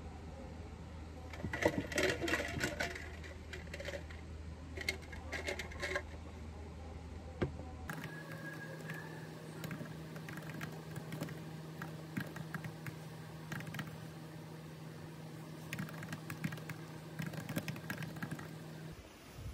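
Typing on a computer keyboard: quick runs of keystrokes, then sparser single key taps, over a low steady hum that shifts pitch about eight seconds in.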